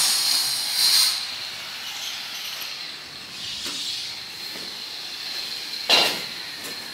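Steady high hiss of a stone-cutting power saw, loud at first and falling away about a second in to a fainter hiss. A single sharp knock comes about six seconds in.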